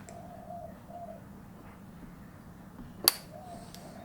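A single sharp metallic click about three seconds in, from piston and circlip assembly work on an engine's connecting rods. Under it, a faint wavering tone is heard twice.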